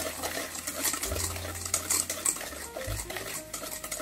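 Wire balloon whisk beating egg, oil and sugar in a stainless steel bowl: quick, irregular metallic clinks and scrapes of the wires against the bowl.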